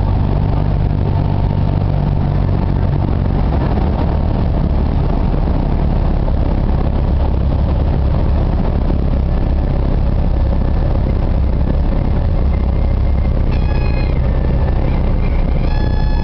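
Cabin noise of a light high-wing propeller plane on landing approach: the piston engine and propeller running steadily, dropping to a lower note about three seconds in as power comes back. Near the end a high steady tone sounds twice, briefly and then for about a second, as a stall warning horn does in the landing flare.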